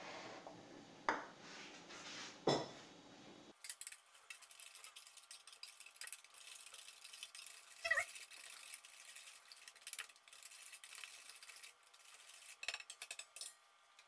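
Eggs and sugar being beaten by hand in a metal mixing bowl, the utensil clicking and clinking rapidly against the bowl's side. Two sharp knocks come first, then fast, uneven clicking runs until near the end. This is the first stage of brownie batter.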